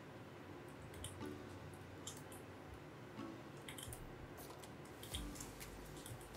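Faint, scattered clicks of a computer mouse and keyboard, coming irregularly and sometimes two or three close together, with a soft low thump about five seconds in.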